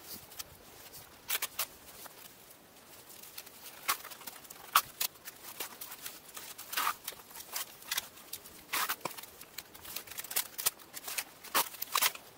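Irregular crunching clicks and scrapes of steps in snow, a few close together at a time, louder in the second half.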